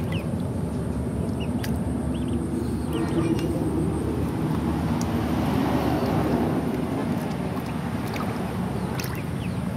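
Hands swishing and splashing water in a plastic basin while rinsing eels, over a steady low rumble that swells in the middle.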